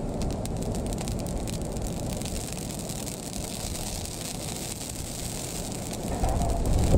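Peanut oil sizzling and crackling as it is wiped in a thin coat onto the hot steel plate of a Blackstone 36-inch griddle during seasoning, with a steady low rush underneath that grows louder about six seconds in.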